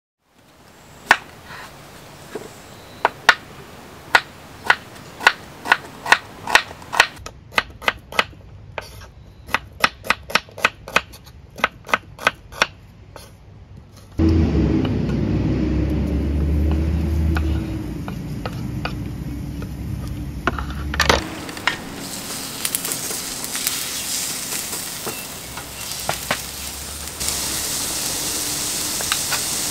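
A knife chopping on a cutting board, the strokes coming quicker and quicker; then a low rumble for several seconds; then food sizzling in a hot pan.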